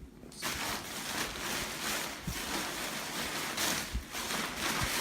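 Steady rustling and crinkling of the inflatable's fabric and packaging being handled, with a few soft thumps.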